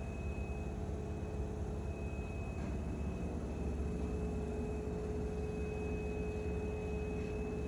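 Steady mechanical hum with a low rumble and a faint, steady high whine.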